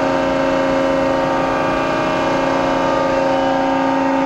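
Hydraulic power unit of a Cincinnati 175-ton CNC press brake, its 25 hp main drive motor and pump running steadily at idle. It makes a constant hum with several held tones.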